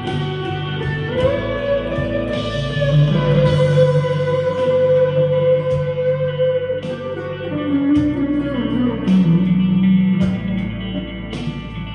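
Harley Benton CST-24 electric guitar played through a Vox AV15 amp on its crunch channel, with reverb, delay and chorus set at half. It plays a slow lead line: one long held note for several seconds, then a few notes gliding down to a lower held note.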